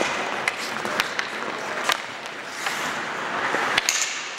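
Ice hockey in play: sharp clacks of sticks and puck, several in the first two seconds and another near the end, over skates scraping on the ice and the rink's background noise.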